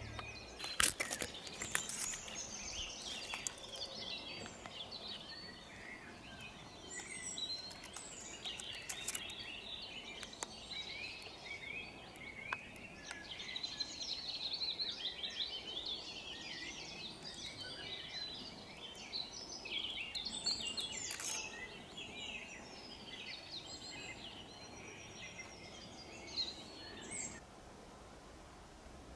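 Several songbirds singing and chirping at once, a dense overlapping chorus of short high calls and trills, with a few sharp clicks. The singing dies down near the end.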